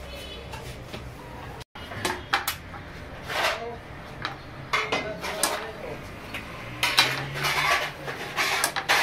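Metal serving spoon scraping and clanking against a large metal cooking pan and a china plate as rice is dished out: a run of irregular clinks and scrapes that starts after a short gap about two seconds in.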